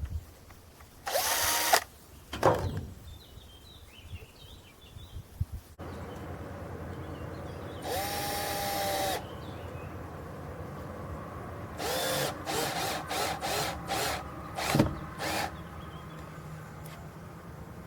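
Power drill run in short trigger bursts: one brief burst, a longer run about eight seconds in with the motor winding up and back down, then a string of quick stop-start pulses near the end.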